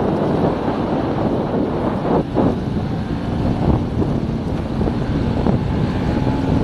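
Motorcycle riding along with wind buffeting the action camera's microphone, loud and steady, and the bike's engine running underneath.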